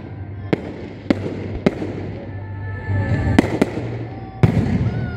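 Aerial firework shells bursting with sharp bangs. Three come evenly about half a second apart, then a quick pair a little past the middle and the loudest bang near the end.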